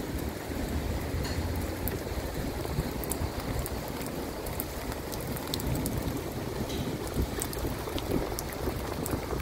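Heavy rain falling over flooded ground: a steady hiss with scattered sharp ticks of drops landing close by, over a low rumble.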